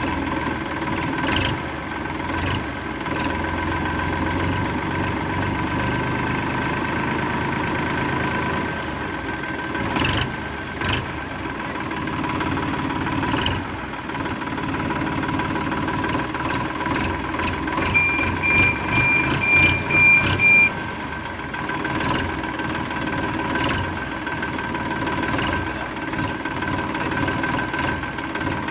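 Small motors of a miniature backhoe model running with a steady whine, with scattered clicks and knocks. A little past the middle comes a short run of high beeps, like a reversing alarm.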